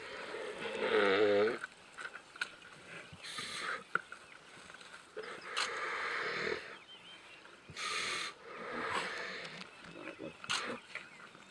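Lions growling and snarling in short rough bursts while feeding on a Cape buffalo carcass, with one short wavering pitched cry about a second in.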